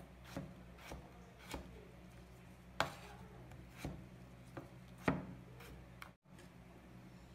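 Chef's knife dicing raw potatoes on a wooden cutting board: separate knife strikes on the board, roughly one a second and uneven in strength, the loudest two about three and five seconds in. The chopping stops about six seconds in.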